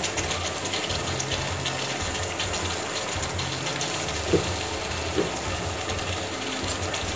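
Pork chops in barbecue sauce bubbling and sizzling in a large frying pan, a steady crackling simmer.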